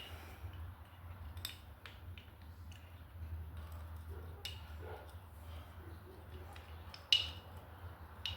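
Scattered light metallic clicks and taps of new brake pads being slid into a motorcycle brake caliper, the loudest click about seven seconds in, over a steady low hum.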